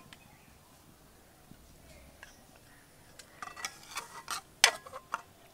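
A metal utensil clinking against a pan or bowl several times in quick succession as malpua are lifted out of the sugar syrup, after a few quiet seconds.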